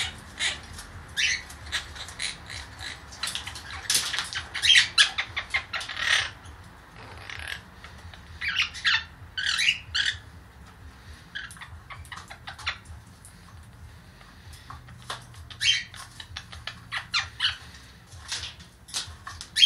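A young blue Quaker parrot (monk parakeet) making a run of short, high chirps and squawks in quick clusters, with short pauses between them.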